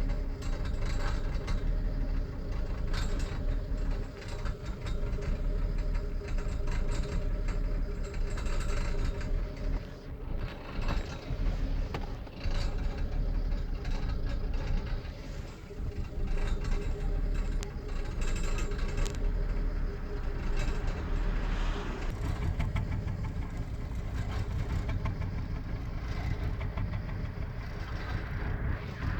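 BMW petrol engine running cold, with irregular ticks over a steady engine note. This is the strange cold-engine noise being shown as a problem.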